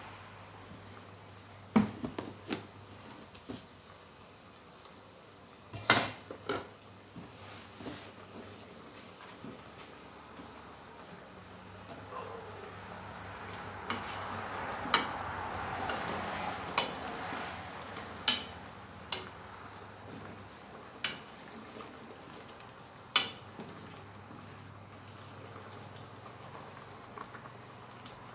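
Metal ladle clinking and knocking against the rim and sides of an aluminium cooking pot while curry is stirred, with about a dozen sharp clinks spread out and a louder stretch of stirring and sloshing in the middle. A steady high-pitched trill runs underneath.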